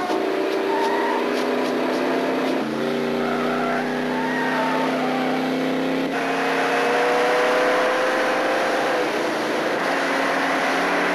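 Car engine running hard at high revs in a car chase, a steady drone whose tone changes abruptly twice, about three and six seconds in.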